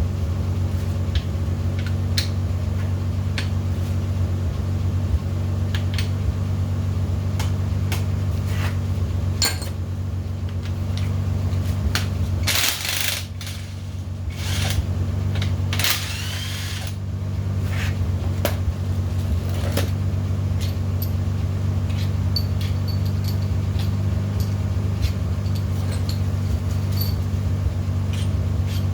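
Metal tools and engine parts clinking and clattering during an RB20DET engine teardown, over a steady low hum. Two short rushing bursts of noise come about halfway through.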